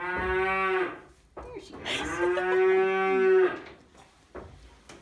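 Cow mooing twice: a short moo at the start, then a longer moo about two seconds in.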